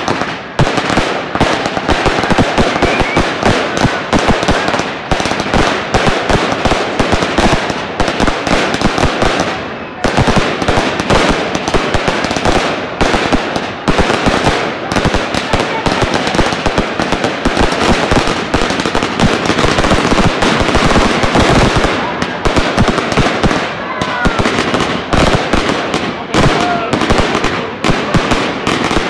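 Fireworks going off in a dense, unbroken barrage of cracks and pops, many a second, with a brief lull about ten seconds in.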